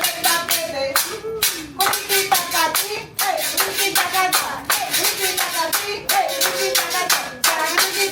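Merengue music with a fast, steady beat of sharp strikes, about four a second, under a wavering melody line.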